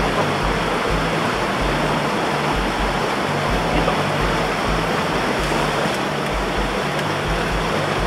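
Mountain stream rushing over rocks in a steady wash, with background music laid over it whose low bass notes pulse about twice a second.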